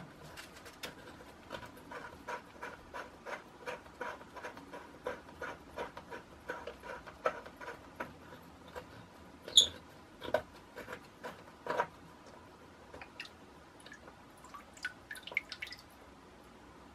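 Fingers handling and scraping at the plastic body of a dismantled ball cock (float valve): a run of small clicks and scratches, two or three a second, with one sharper click about ten seconds in and a few scattered ticks near the end.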